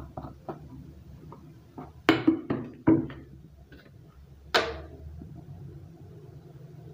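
Plastic sugar jar being opened one-handed: a run of small clicks and knocks as the screw cap is twisted off and handled. A sharper knock about four and a half seconds in as the cap is set down on the metal stove top.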